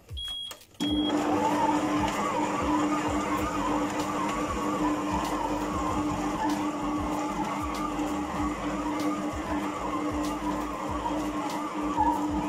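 Two short high beeps, then about a second in an electric stand mixer starts up and runs steadily, its dough hook kneading a stiff semolina bread dough, with an even motor hum.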